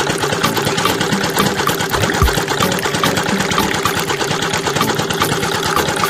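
A small motor driving the rollers of a miniature model roller machine, running steadily with a fast, even rattle.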